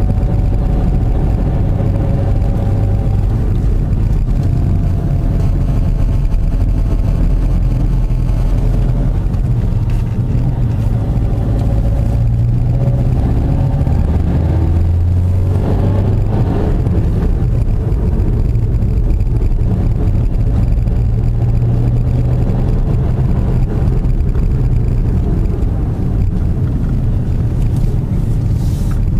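A car's engine running under way with road and tyre rumble, heard from inside the moving car; the engine note shifts now and then as it drives the bends.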